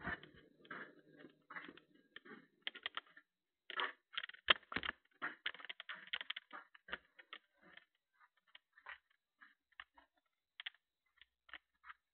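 Irregular light clicks and taps from a person moving about with a handheld camera, quick and close together in the first half with the sharpest tap about halfway, then sparser and fainter.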